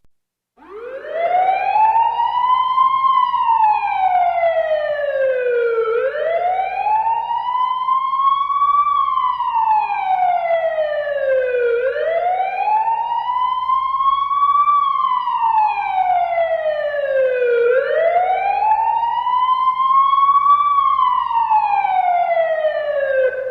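Police siren in a slow wail, winding up from silence about half a second in. The pitch climbs quickly, then falls back more slowly, repeating about every six seconds, four times in all.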